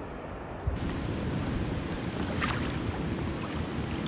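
Steady rushing of whitewater rapids on a river. It steps up suddenly to a louder, fuller rush a little under a second in.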